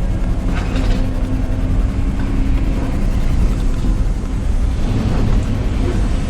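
Pickup truck driving, a steady low engine and road rumble.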